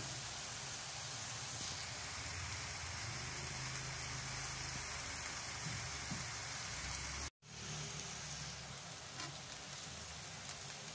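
Steady sizzling of pancit bato noodles and chicken frying in a pan. It cuts out abruptly for an instant a little past seven seconds, then resumes, with a few light clicks of tongs against the pan near the end.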